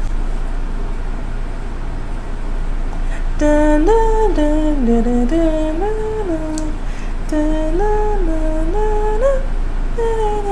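A woman humming a short wandering tune that starts about three seconds in, over a steady low background hum.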